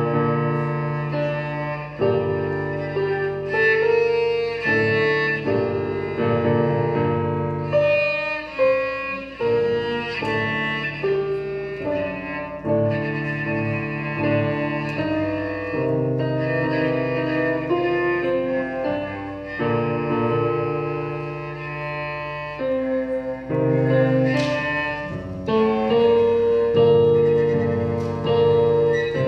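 Electric cello bowed in a melody of long held notes that change every second or two.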